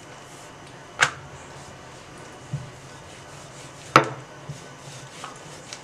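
A rolling pin knocking sharply twice against a stone worktop while dough is rolled out, about a second in and again about four seconds in, with a fainter tap between, over a faint steady low hum.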